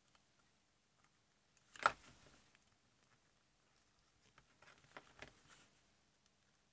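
Small clicks and scrapes of a metal spudger prying at the coil assembly of a Linn Axis turntable motor, with one sharp louder clack about two seconds in and a softer cluster of clicks later.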